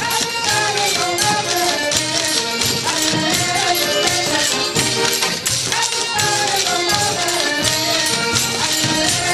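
Portuguese folk music: a piano accordion plays a lively melody over hand percussion keeping a steady, even beat.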